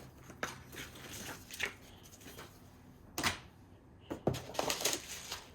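Scattered light clicks, knocks and rustles from packaging and box contents being handled, with one sharper click a little past halfway and a brief flurry near the end.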